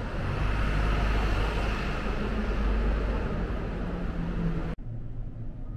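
Urban traffic noise: a steady low rumble of passing vehicles with road hiss, swelling slightly through the middle. It cuts off abruptly about five seconds in, leaving a quieter low hum.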